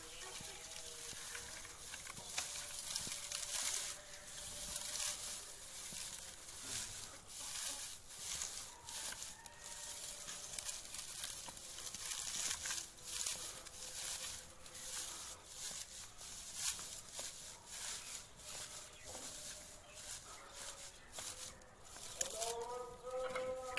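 Dry grass rustling and crackling as it is pressed and shaped by hand into a nest in a plastic crate. A pitched call joins near the end.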